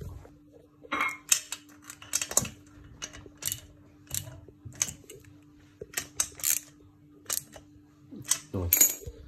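Hand tools and metal pit-bike parts clicking and clinking, a dozen or so sharp irregular clicks, some in quick clusters, with a faint steady hum underneath.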